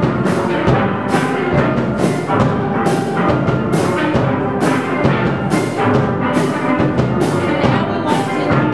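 A school steel band playing: steel pans carrying the tune, backed by a drum kit, to a steady beat with a crisp stroke about twice a second.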